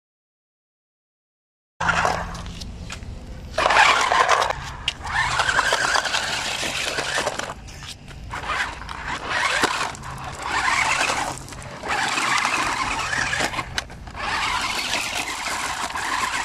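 Sprint Evo toy RC stunt car driven in spurts over gravel: its small electric drive motors whine and its tyres crunch and scrape over loose stones. This starts after a couple of seconds of silence.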